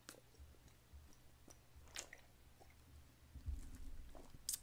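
Faint gulping as a man downs soju straight from the bottle in one go, with a few small clicks.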